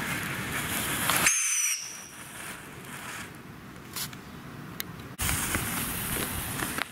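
Hen-shaped ground fountain firework hissing as it sprays sparks, with crackles. About a second in the spray cuts off abruptly with a short falling whistle, leaving a quieter spell with a few pops, and the loud hissing spray starts again about five seconds in.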